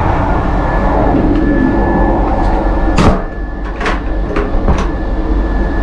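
Running noise of an SNCB M6 double-decker coach in motion, heard from its vestibule: a steady rumble with a faint high whine. A few sharp clicks from about three seconds in, as the toilet door's handle and lock are worked.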